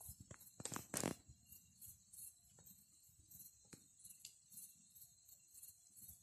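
Faint night ambience of insects chirping high-pitched in a steady rhythm, about three chirps a second. A few sharp clicks and rustles come about a second in.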